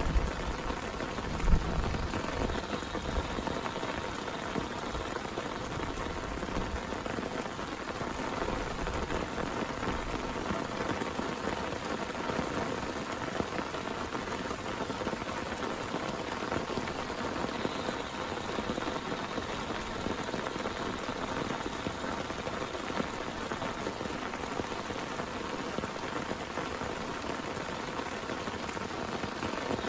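Heavy rain falling steadily. A low rumble fades out over the first couple of seconds, with one sharp knock about a second and a half in.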